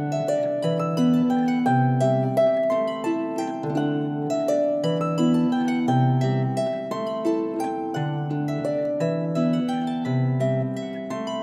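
Instrumental background music: quick plucked notes in a flowing pattern over a slow bass line that changes note about every second or two.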